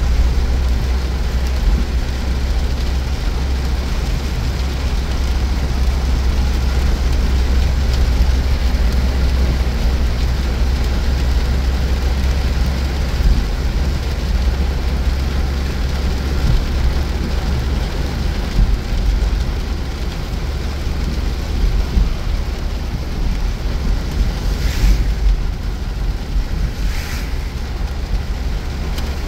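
Car driving in heavy rain: a steady low rumble of road noise under an even hiss of rain and tyre spray on the wet road. Near the end, two short hisses rise briefly over it.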